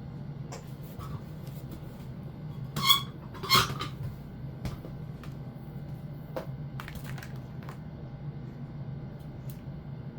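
Hands-on electrical wiring work: scattered small clicks and taps of wires and tools being handled, with two short, high squeaks close together about three seconds in, over a steady low hum.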